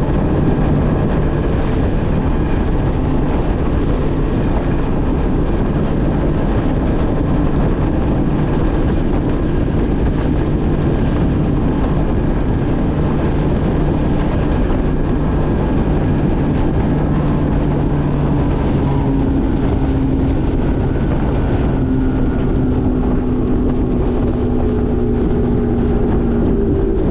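Bass boat's outboard motor running at speed on a test run, a steady engine tone under loud rushing noise, its pitch shifting slightly in the last few seconds.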